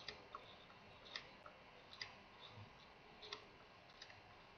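Near silence broken by a few faint, irregular clicks about a second apart, from a pen stylus tapping and writing on a graphics tablet.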